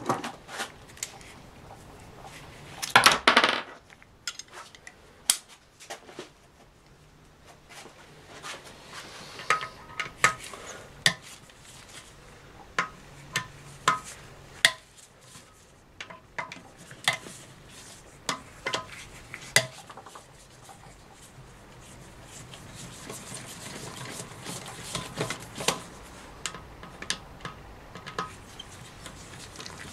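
Metal hand tools clinking and tapping against the aluminium case of a Ford 5R55S automatic transmission during teardown: scattered sharp clicks throughout, with one louder clatter about three seconds in.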